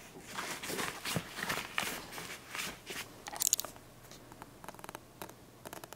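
Hands handling a pet heating pad's fabric cover and battery pocket: irregular rustling and crinkling, with one sharper scrape about three and a half seconds in and a run of quick ticks near the end.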